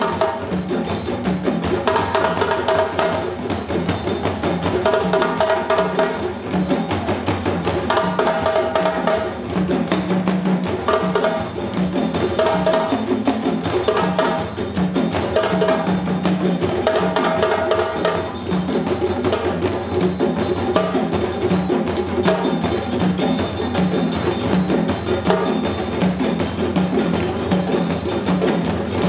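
West African drum ensemble playing a fast, continuous interlocking rhythm: many djembes struck by hand over dunun bass drums beaten with sticks. In the first two-thirds, a phrase recurs about every second and a half.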